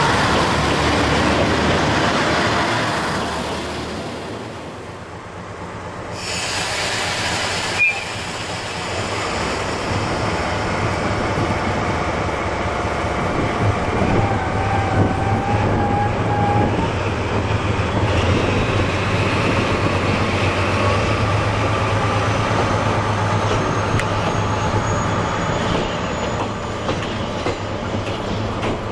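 A diesel railcar's engine runs loud at first and fades after a few seconds, followed by a brief burst and a sharp click. Then a DE10 diesel-hydraulic locomotive propels the trolley coaches slowly past. Its engine hums steadily under the clatter of wheels over rail joints, with a short wheel squeal partway through.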